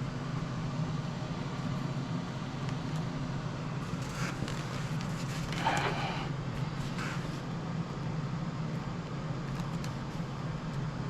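Steady low background hum, with a few faint, brief handling rustles about four, six and seven seconds in.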